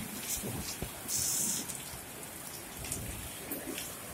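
Steady rain falling, with scattered drops ticking through it and a brief louder hiss about a second in.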